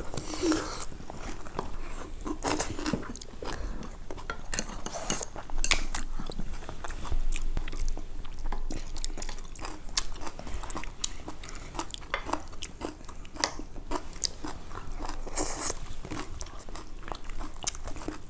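Two people chewing and crunching food close to clip-on microphones: a steady run of wet mouth sounds and many short, sharp crunches and clicks.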